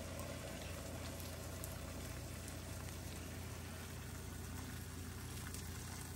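A steady stream of just-boiled water poured from a kettle, splashing into a glass bowl over blocks of dried ramen noodles, over a steady low hum.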